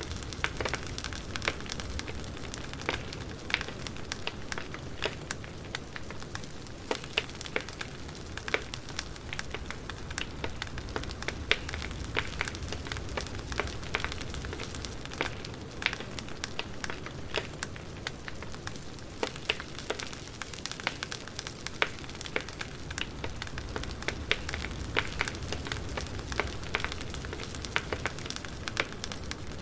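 Campfire crackling: many irregular sharp pops and snaps of burning wood over a steady hiss of flames.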